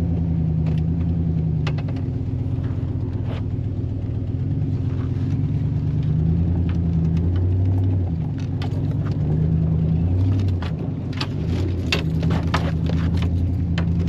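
Pickup truck engine running loud, heard from inside the cab as the truck drives off, its revs dipping and picking up again about eight and about ten and a half seconds in. Scattered knocks and rattles come through as it goes over the rough lane.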